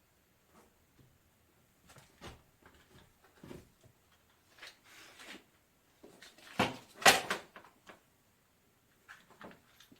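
Scattered knocks and clatters of objects being handled and set down, with the loudest cluster a little past the middle.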